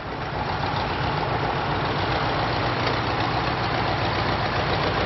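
Tractor diesel engines idling, a steady low rumble that grows louder over the first second.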